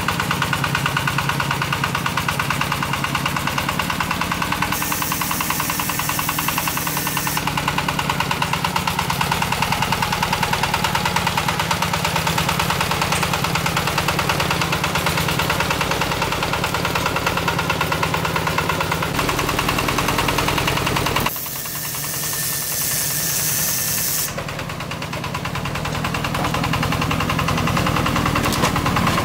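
Single-cylinder diesel engine of a homemade farm truck (tractor-head type) running with a rapid, even chug as the truck drives. The sound shifts abruptly about three-quarters of the way through.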